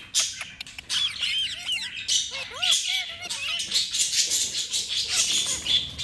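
Indian ringneck parrot calling continuously: a quick string of short whistled chirps mixed with harsh squawks.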